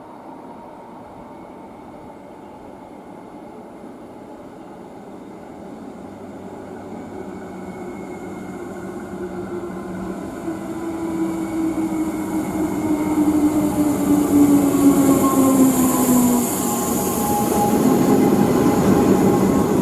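A suburban electric train approaching and growing steadily louder, its motors whining in several tones that slide down in pitch, over rising wheel and rail noise.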